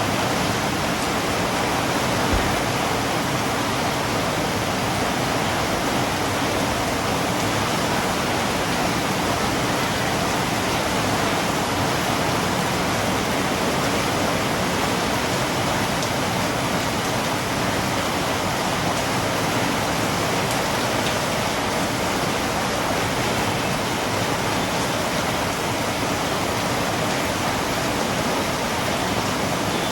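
Steady, heavy rain falling without a break, a constant even hiss, with a single brief low thump about two seconds in.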